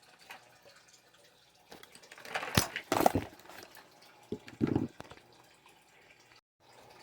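Handling noise: brief rustles and clicks as a pack of washi tape rolls is picked up and handled, in two short bursts about two and four and a half seconds in.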